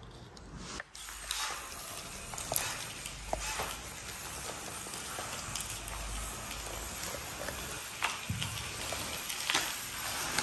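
Small motor-driven mechanism of a cardboard model tractor running, with irregular clicking and rattling over a steady low hum.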